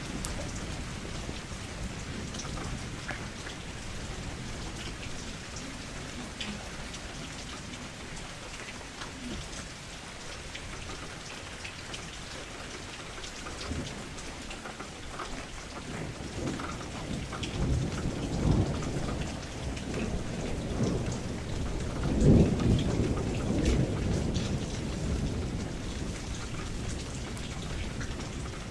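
Rain falling steadily against a window glass, with scattered drop ticks. A low rumble swells through the second half, loudest about two-thirds of the way in.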